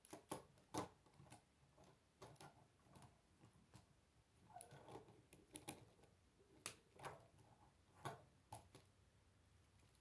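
Plastic K'nex parts clicking and snapping together as a model is assembled by hand: about a dozen sharp clicks at uneven intervals, with soft handling rustle between them.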